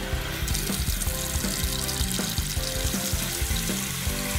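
Water running from a tap into a sink, starting about half a second in, as a cartoon sound effect over light background music.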